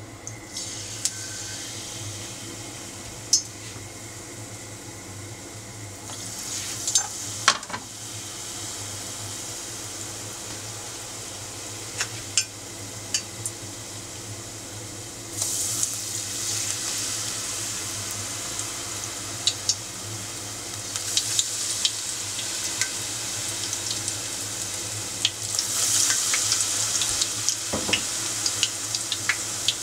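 Tempura frying in a pot of hot oil: a steady sizzle that grows louder about halfway through and again a few seconds from the end as more battered pieces (eggplant, then green shoots) go in. A few short sharp clicks stand out now and then.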